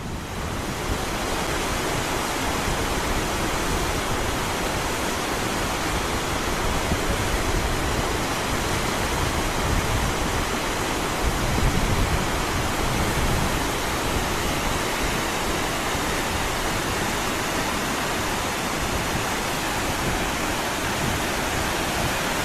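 Waterfall water pouring and rushing in a steady, unbroken roar of white noise.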